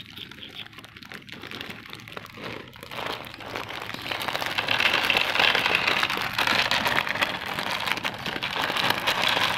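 Clear plastic bag of dry cat kibble crinkling and crackling as it is handled, getting much louder a few seconds in.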